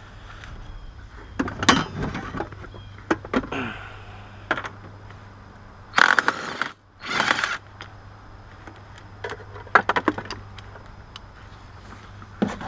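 Mechanical handling noise: scattered clicks and rattles of tools and plastic car trim being moved, with two louder scraping rustles about six and seven seconds in.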